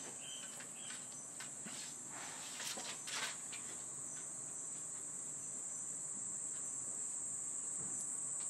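Insects calling in a steady, high-pitched chorus, with a few soft rustles around three seconds in.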